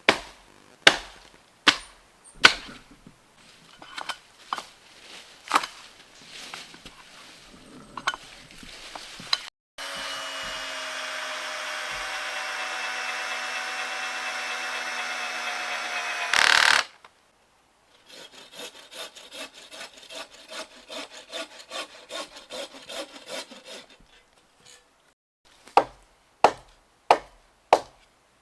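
Woodworking with tools: first a series of sharp wooden knocks, then a power tool running steadily for about seven seconds before stopping abruptly. A run of quick, even strokes at about four a second follows, like sawing, and more sharp knocks come near the end.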